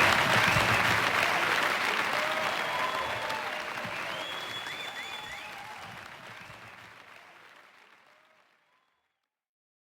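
A crowd applauding, with a few faint whistles or calls, fading out to silence about eight or nine seconds in.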